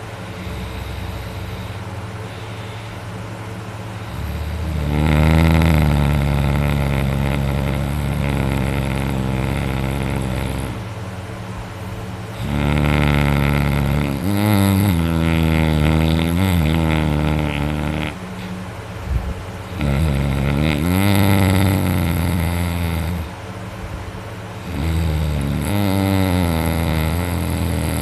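A sleeping person snoring loudly: four long snores several seconds apart, their pitch wavering within each, over a steady low hum.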